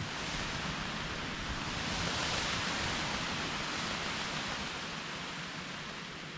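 An even outdoor rushing noise that builds to a peak a couple of seconds in and then slowly eases off.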